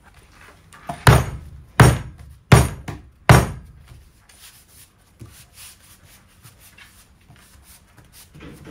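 A fist pounding four times in quick succession on a sheet of furniture linoleum to press it onto spray-glued plywood, each blow a dull thump, followed by faint taps and rubbing of the hands over the sheet.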